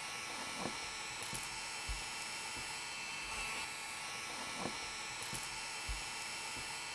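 Small handheld rotary mini drill running steadily with a high-pitched whine and hiss as it bores small holes through a thin plastic container, with a few faint knocks.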